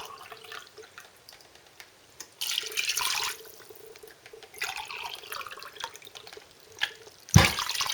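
Water poured from a glass into a pot of chicken pieces, in separate pours of about a second each, with a louder, sharper sound near the end.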